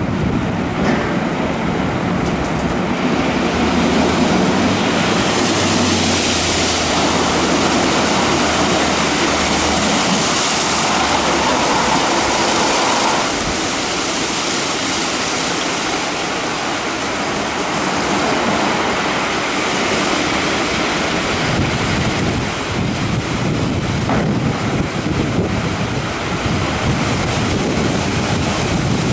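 WashTec EasyWash rollover car wash running its brush cycle over a car: spinning wash brushes and water making a steady loud rushing noise, with a low motor hum through the first half that stops about halfway.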